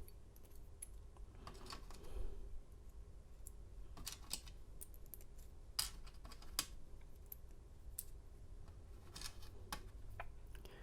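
Small scattered clicks and light metallic taps of lock parts being handled as a deadbolt cylinder is re-pinned and reassembled, coming irregularly every second or so.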